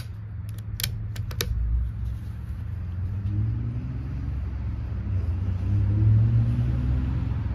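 A few sharp metallic clicks from the bolt of a .22 LR bolt-action rifle being worked, then a steady low rumble that swells louder toward the end.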